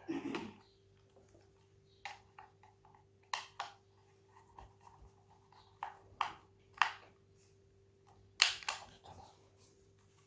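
Parts of a Dyson V6 cordless vacuum being handled and fitted back together: a series of separate sharp clicks and knocks, about seven in all, the loudest a little past eight seconds in.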